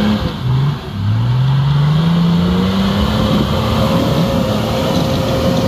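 Mercedes-Benz G-Class off-roader's engine revving hard under load as it climbs through deep mud ruts. The revs dip briefly near the start, then rise steadily for about two seconds and hold high.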